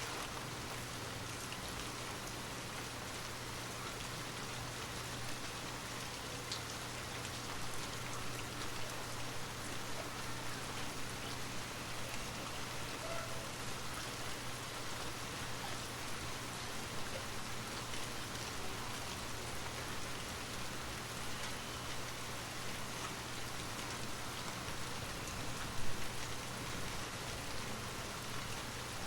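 Steady rain falling: an even hiss of rain on a surface with scattered drops. A brief, sudden louder knock comes near the end.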